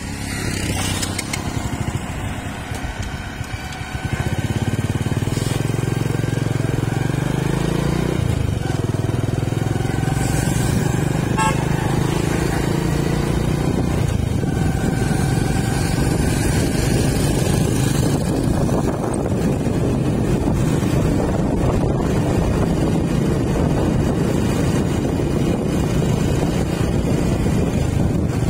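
Road noise from a moving vehicle in traffic: a steady rumble of engine and tyres that gets louder about four seconds in, with vehicle horns sounding through the middle.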